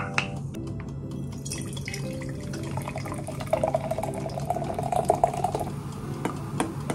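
A sharp click, then Pepsi poured from the can into a glass jar: a splashing, gurgling pour with fizzing carbonation as the foam rises, ending about six seconds in.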